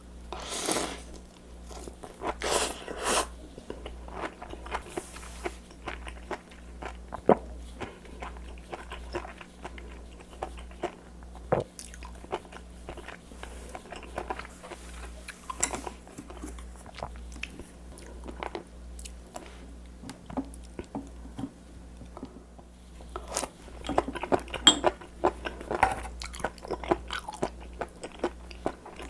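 Close-up chewing and biting of raw seafood: many short, crisp crunches and wet mouth sounds, busiest near the start and again in the last third. A steady low electrical hum runs underneath.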